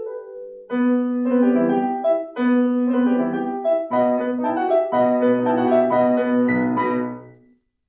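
Classical piano music: a passage of full chords and running notes that dies away to silence near the end.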